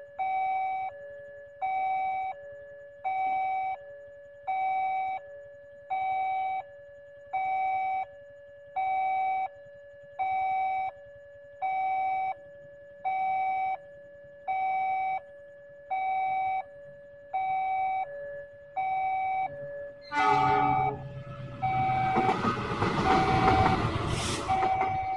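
Railway level-crossing warning bell ringing a repeated two-tone electronic ding-dong, a bit more than once a second, while the barriers are down. Near the end a train horn sounds and a diesel-hauled passenger train rolls through the crossing, its noise covering the bell.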